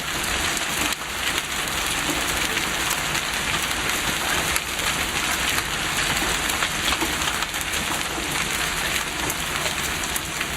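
Hailstones pelting down in heavy rain: a dense, steady hiss crowded with sharp ticks of stones striking.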